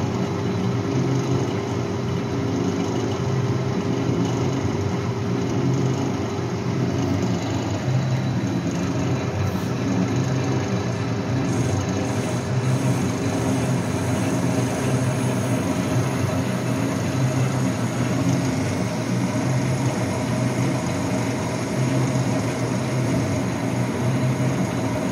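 Metal lathe running steadily while machining a piston, its motor and gearing giving a constant mechanical hum. A higher note in the hum fades out about seven seconds in.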